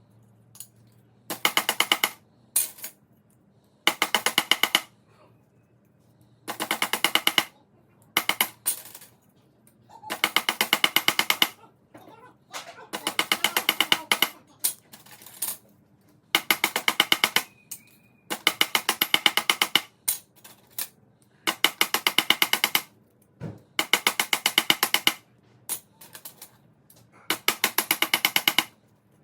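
Rapid metallic tapping in short runs, with pauses between: a hammer tapping small aluminium strips flat after they were cut with snips.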